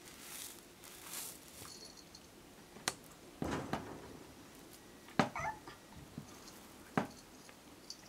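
Ginger tabby stray cat giving a short, wavering meow about five seconds in, among a few sharp clicks and a rustling thump.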